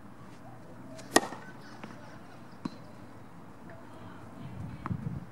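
Tennis ball impacts on an outdoor court: one sharp, loud pock about a second in, then two lighter taps. A low rumble rises near the end.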